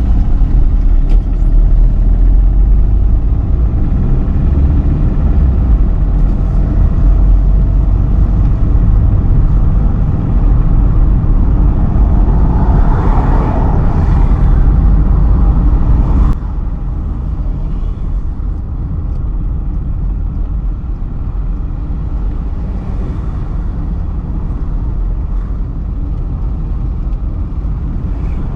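A car driving along, with steady road and engine rumble heard from inside. A brief swell of noise builds and fades a little before halfway. About 16 s in the noise drops suddenly to a quieter level and stays there.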